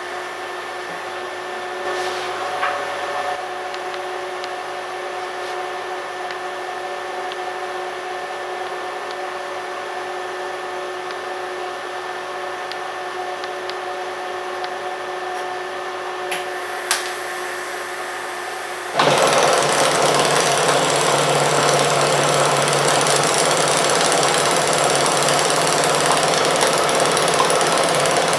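A steady machine hum with a few sharp clicks while the torch is set on the joint. About 19 seconds in, the arc of a TipTig hot-wire TIG torch welding stainless steel strikes and runs as a loud, steady rasp.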